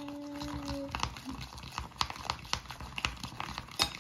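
A person hums one steady note for about the first second. Then comes a quick, irregular run of small clicks and taps from a spoon knocking and scraping in a plastic container as slime mixture is stirred, with one sharper tap near the end.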